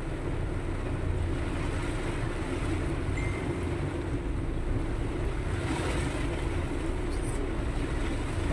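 Steady low rumble of a moving vehicle's engine and road noise, with an even hiss over it.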